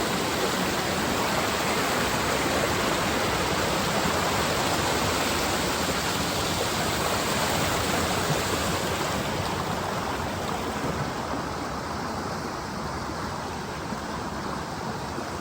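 Steady rush of water from a mountain stream's waterfall cascades, a dense even hiss with no pauses. From about halfway through, the higher part of the sound gets softer.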